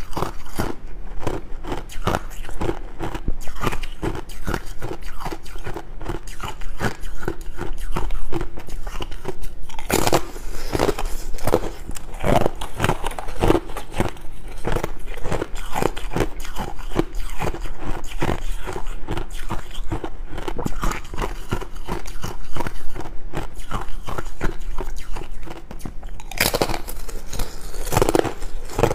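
Close-miked biting and chewing of frozen yellow ice discs: a dense run of sharp crunches and crackles, with louder bites about ten seconds in and again near the end.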